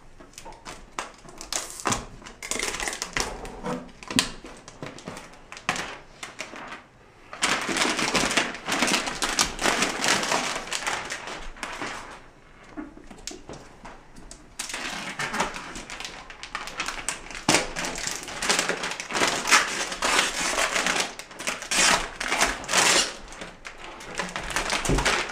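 Thin protective plastic film being peeled off an iMac's glass screen and handled, crinkling and crackling in long spells with a couple of quieter gaps.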